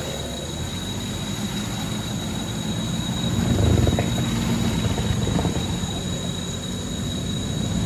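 4x4 SUV engine working under load as the vehicle pushes through deep mud, swelling louder about halfway through as the revs rise.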